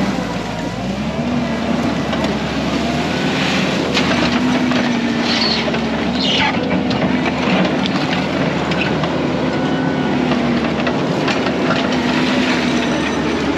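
Kubota SVL75 compact track loader's diesel engine running steadily under load, with scattered sharp cracks and knocks as it works through the brush.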